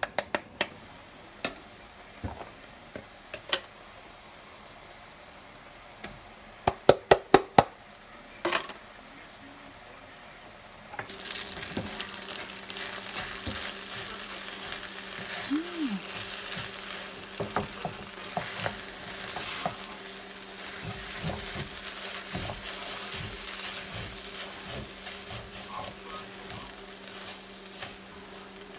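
Tuna fried rice sizzling in a nonstick frying pan as a spatula stirs it through, starting about eleven seconds in. Before that come sharp scattered taps and clicks, with a quick run of about five loud ones near the middle.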